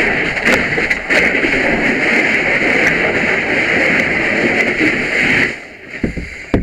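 Fire hose nozzle flowing water, a loud steady hiss that cuts off suddenly about five and a half seconds in as the nozzle is shut, followed by a few low knocks.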